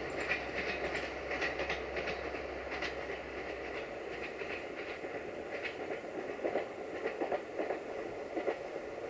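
Train running past, its wheels clicking over the rail joints in an uneven series of clicks over a steady rumble; a low hum underneath stops about four seconds in.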